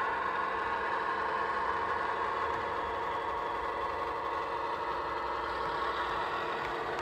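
An OO gauge model diesel locomotive's sound decoder playing a steady diesel engine running sound through its small speaker.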